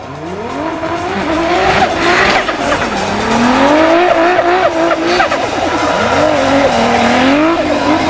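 A drift car's engine revving hard, its pitch rising and falling as the throttle is worked through the slide, with the tyres squealing. It grows louder over the first couple of seconds.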